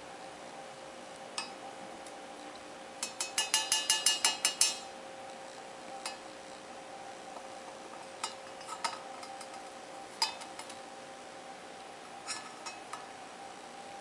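Stainless steel milk jug clinking and ringing as an Indian ringneck parakeet's beak taps and knocks against it: a quick run of about ten clinks a few seconds in, then scattered single clinks.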